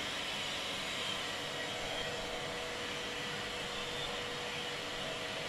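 Steady background hum and hiss of machinery, with a few faint steady tones running through it.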